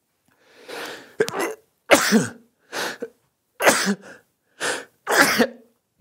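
A man having a sneezing fit: a drawn-in breath, then about six sharp sneezes in quick succession, roughly one a second.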